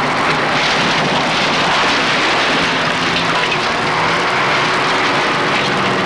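Demolition of a wrecked brick building by heavy machinery: a continuous rush and crash of falling masonry and timber, with a machine's engine running underneath.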